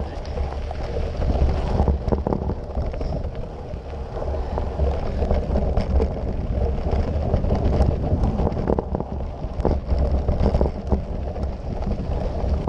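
Wind buffeting the microphone as a mountain bike rolls over a dirt forest trail, with frequent knocks and rattles as the bike hits bumps.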